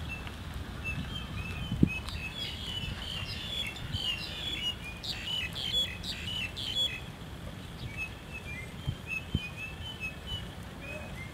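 Small birds chirping repeatedly in short high calls, busiest in the middle.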